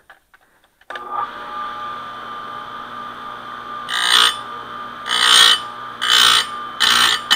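Electric chainsaw chain sharpener: its grinder motor switches on about a second in and runs with a steady hum, then the grinding wheel bites the chain's cutters four times in short, harsh grinding passes.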